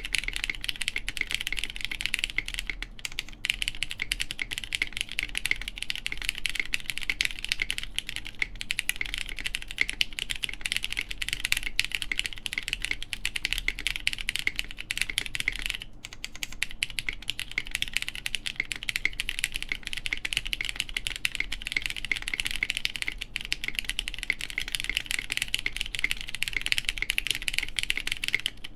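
Continuous fast typing on a plateless mechanical keyboard with lubed Cherry MX Brown tactile switches and GMK keycaps: a dense stream of key clacks, with a brief lull about sixteen seconds in.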